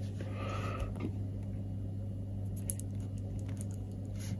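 Soldering iron melting solder onto an SO239 connector's centre pin: faint crackles and ticks of the flux, mostly in the second half, over a steady low hum.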